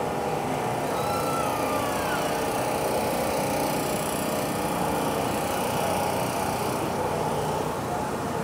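Steady city traffic hum, a constant mix of engine noise with no single vehicle standing out, and a brief faint high squeak about a second in.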